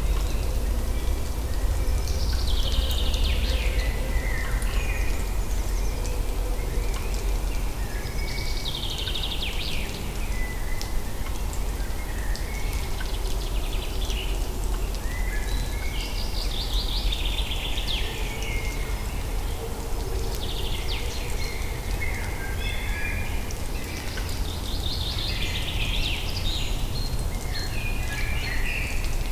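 A songbird singing short phrases every few seconds, each running down from high to lower pitch, over a steady low rumble.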